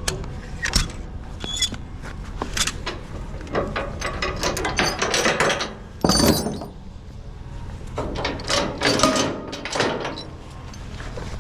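Ratchet tie-down straps being worked open: a run of irregular ratchet clicks and metal clanks.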